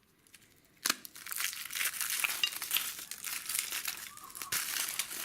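Wrapping of a surprise egg being crinkled and torn open by hand: a sharp click about a second in, then steady crackling rustle with many small clicks.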